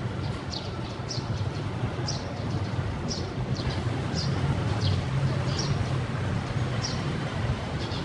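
Asian street ambience: a steady low rumble of traffic, with short high chirps recurring about once or twice a second.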